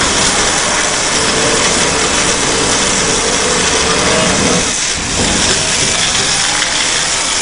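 Steady hissing rush of a high-pressure water jet with an engine running under it, dipping briefly about five seconds in.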